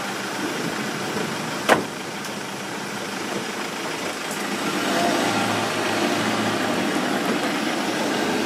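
A vehicle engine idling steadily, getting a little louder with a low hum from about five seconds in. One sharp click a little under two seconds in.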